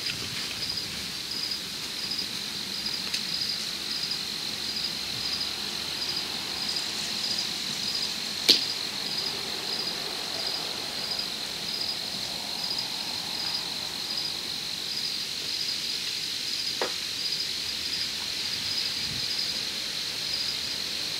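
Crickets chirping steadily, a high trill pulsing about twice a second, with one sharp crack about eight and a half seconds in.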